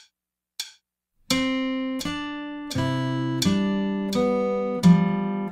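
A last count-in click, then an acoustic guitar starts a minuet about a second in, plucking a slow, even line of notes with bass notes under them, about one every 0.7 seconds.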